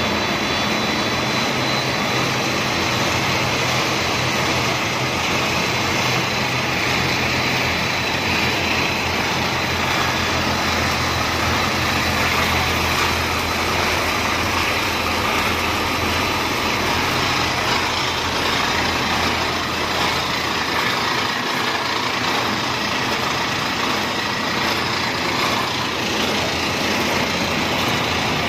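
Steady machinery noise of a snack-food extrusion production line running, with motors, a mixer and conveyors going at once, under a steady low hum.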